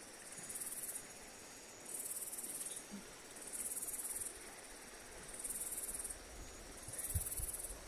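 An insect calling in faint, shrill pulses, each under a second long, repeating about once every one and a half seconds. There is a soft low thump about seven seconds in.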